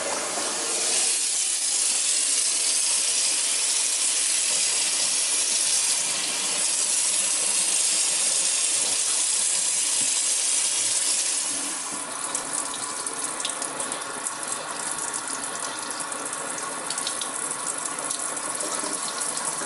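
Delta Berkley kitchen faucet running water into the sink, a steady rushing hiss. About twelve seconds in the flow sound drops to a quieter, lighter splashing and spattering.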